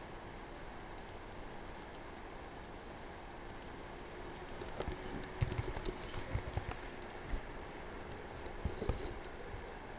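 Computer keyboard typing: a quick run of key clicks for about three seconds past the middle, then a couple more clicks near the end.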